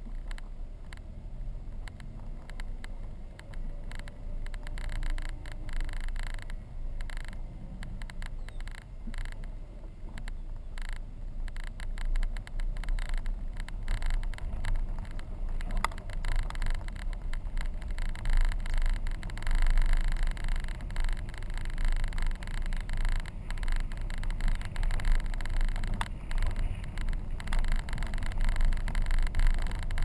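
Car driving on a dirt and gravel road: a steady low rumble of tyres and engine, with frequent small knocks and rattles from the rough surface, growing louder from about halfway through.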